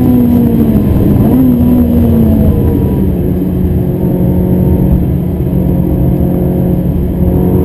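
Ferrari 360 Modena's mid-mounted 3.6-litre V8 heard from inside the cabin under way: the engine note falls over the first couple of seconds with one brief rise in pitch, then holds a steady, slightly lower pitch.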